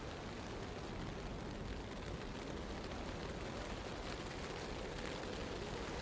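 Steady wind and blowing snow of a blizzard in a city, a continuous even rush with a low rumble beneath it.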